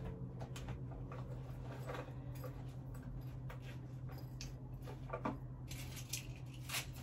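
Handbag being handled: scattered light clicks and taps, with two short rustles about five seconds in and near the end, over a faint steady low hum.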